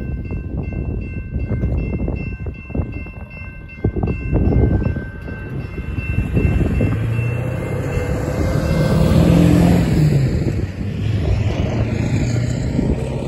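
Railroad crossing warning bell ringing rapidly against heavy wind noise on the microphone. The bell fades out about halfway through, leaving wind rumble and the low sound of a passing road vehicle.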